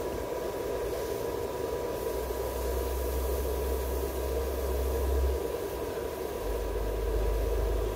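Steady machine-like hum with a thin constant tone running through it, and a low rumble that swells about two seconds in and again near the end.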